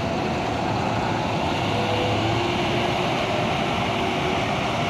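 Diesel engine of a double-decker coach running steadily as the bus moves slowly off, a continuous low hum with a faint steady whine on top.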